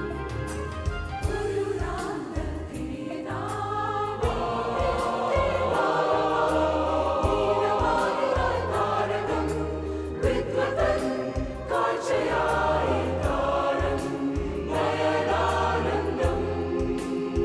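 Mixed SATB church choir singing a Malayalam Christmas carol in harmony, the voices growing fuller about four seconds in.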